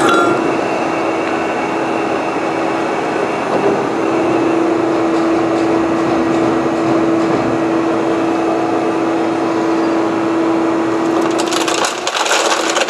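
JMT CNC plate drilling machine running: a steady hum under a continuous noisy crackle. Near the end a rapid crackle of many small clicks sets in as steel chips drop off the chip conveyor.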